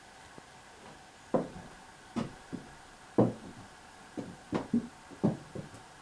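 A string of about nine irregular knocks and thuds on wood, sometimes two close together, over a faint steady hiss.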